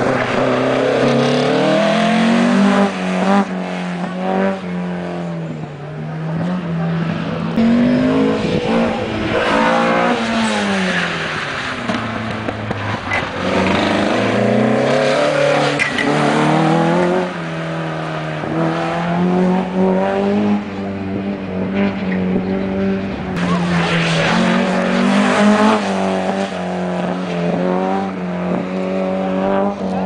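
Opel Kadett C coupé's four-cylinder engine on a slalom run, revving up hard and dropping back again and again as it accelerates between the cones and lifts for the turns.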